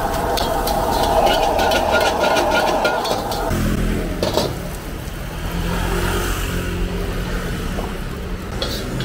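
Gas wok burner running at full flame while a metal ladle scrapes and knocks rapidly against a steel wok, stir-frying rice. About three and a half seconds in, the burner is turned down and its noise cuts off, leaving a lower steady hum with only occasional ladle scrapes as the rice is scooped out.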